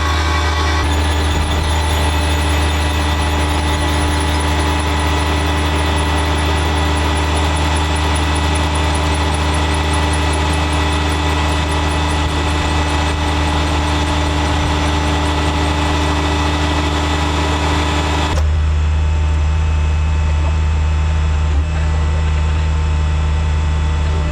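Heavy machinery engine running steadily, with a high squeal over its low hum. About 18 seconds in the sound changes abruptly as the high squeal drops away and only the low engine drone remains.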